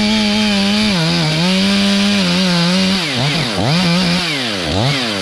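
Stihl MS 500i fuel-injected two-stroke chainsaw running at full throttle, cutting through a standing poplar trunk to fell it. Its pitch holds steady at first, then dips and recovers several times in the last couple of seconds.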